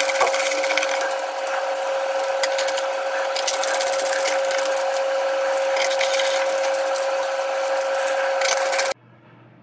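Screwdriver driving screws into a monitor's power board and chassis: a steady whine with dense scraping and clicking that cuts off abruptly near the end.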